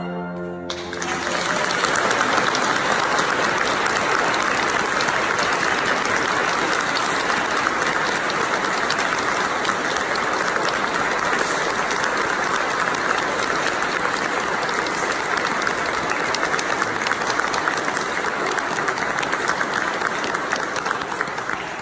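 Audience applauding steadily, starting about a second in as the last held chord of women's voices with banduras and violin dies away, and fading just before the end.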